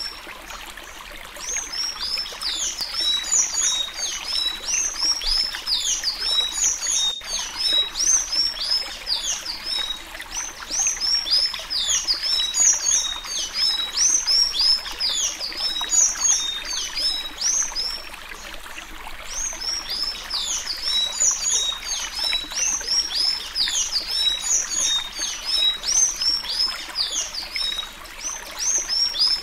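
A sanhaço tanager singing the Alagoas-style 'suí suí' song: fast runs of high, thin notes in long phrases, broken by short pauses near the start, in the middle and near the end. A single click sounds about seven seconds in, over a steady background hiss.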